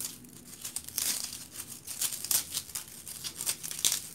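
Styrofoam being torn and crumbled into small pieces by hand: a run of uneven crackling and tearing sounds.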